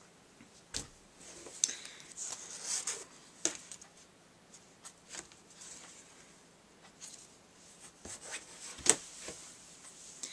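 Light handling of a cardstock cut-out and hands on a tabletop: soft rustling and rubbing with scattered small taps as the paper is moved and set down, the sharpest tap about nine seconds in.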